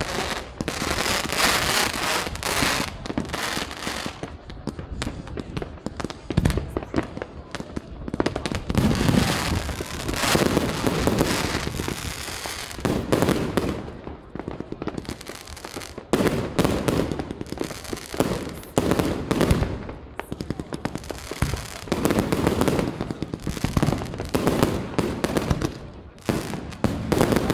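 Aerial fireworks display: shells bursting in a dense run of bangs and crackles, with louder bursts every second or two.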